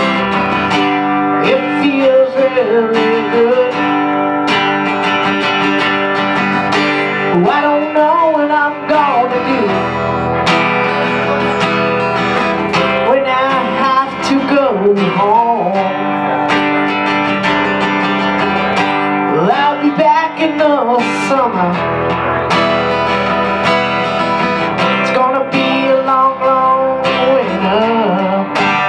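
Acoustic guitar strummed in an instrumental passage of a folk-blues song, with a melody line that bends up and down in pitch every few seconds over the chords.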